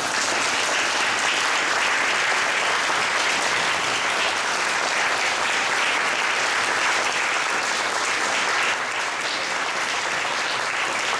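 An audience clapping steadily, easing off slightly near the end.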